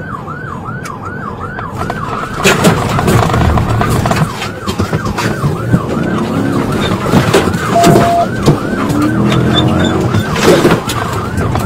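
Police car siren on its fast yelp setting, wailing up and down about three times a second, over engine and road noise with occasional knocks.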